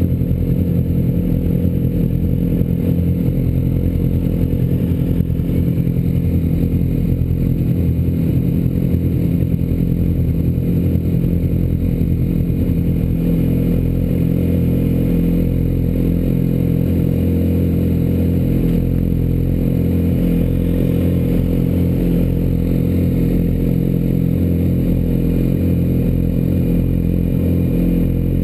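Sportbike engines idling steadily, with no revving.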